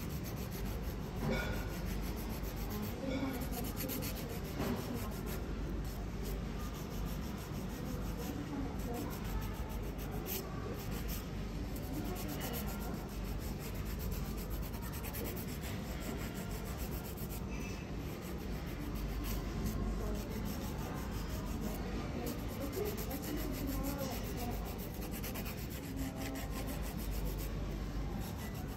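Dip-powder coated fingernails being filed by hand, a steady rubbing rasp that goes on without a break.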